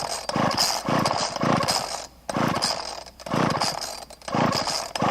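A saw cutting wood by hand in rhythmic back-and-forth strokes: about six rasping strokes, roughly one a second, with short pauses between them.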